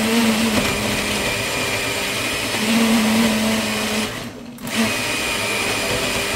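Countertop blender running, blending a smoothie of yogurt, bananas, ginger and coconut cream. It cuts out briefly about four seconds in and starts again.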